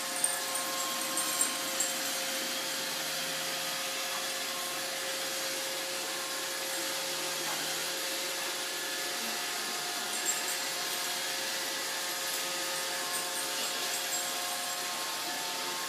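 Roomba robot vacuum running: a steady whir with a constant motor whine, and a few light knocks near the start and about ten seconds in.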